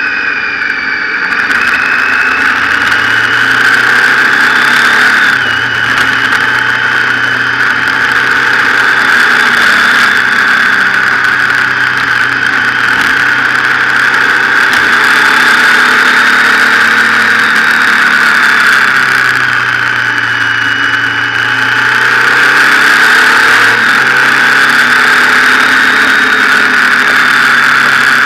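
Motorcycle engine running under way, its note falling briefly about five seconds in and again around twenty seconds in before picking back up, over a steady rush of wind and road noise.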